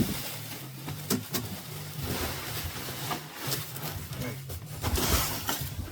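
Unpacking a boxed replacement grinding wheel: a few sharp knocks and clicks of handling, then packaging rustling near the end, over a steady low hum.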